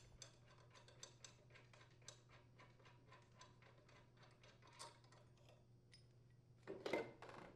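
Faint, regular clicking, about three to four clicks a second, as the lawn mower blade's mounting bolt is unthreaded by hand. Near the end comes a short, louder clatter of metal parts being handled as the bolt and blade support come free.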